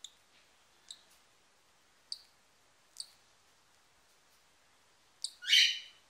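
Newly hatched cockatiel chick peeping: a few short, high cheeps about a second apart, then a louder, longer cheep rising in pitch near the end.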